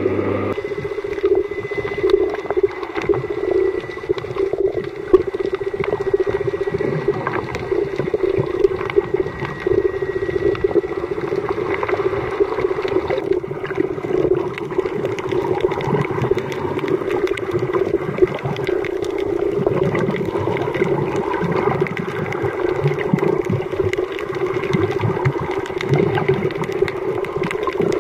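Underwater ambience picked up by a camera in shallow sea water: a steady low hum with sloshing water and a constant crackle of small clicks.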